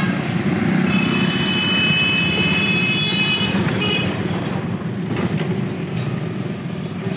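Street traffic: motor vehicle engine and road noise running steadily. From about a second in, a high steady tone sounds for almost three seconds, then stops.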